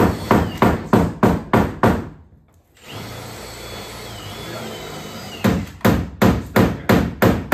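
Hammer striking a car's sheet-metal wheel arch in quick, even blows, about three a second. The blows stop about two seconds in, a steady hiss fills the middle, and then the hammering resumes at the same pace.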